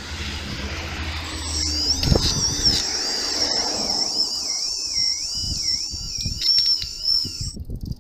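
A high-pitched squeal from a DIY friction-drive e-bike while riding, its pitch wavering up and down. It starts about a second and a half in and cuts off sharply near the end, over a low rumble of the tyre rolling on paving.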